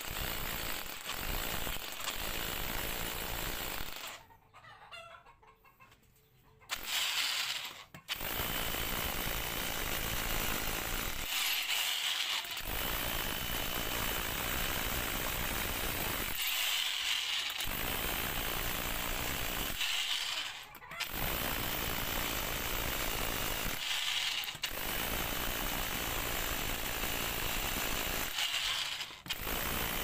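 Mitsushi electric rotary hammer drill in hammer-drill mode, boring holes into a concrete floor with a masonry bit. It runs in long stretches and stops briefly between holes, with a longer pause about four seconds in. The bit sinks quickly into the concrete.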